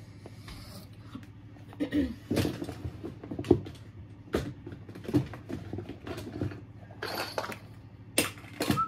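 Small plastic toys clattering and knocking together as a hand rummages through a pile of them, with irregular clicks and knocks.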